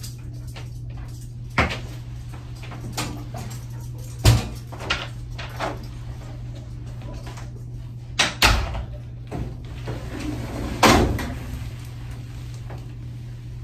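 Door and cabinet knocks and clunks, several separate strikes, the loudest about four and eleven seconds in, over a steady low room hum.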